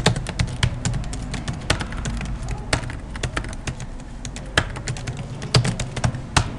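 Typing on a computer keyboard: an uneven run of key clicks, several a second, over a low steady hum.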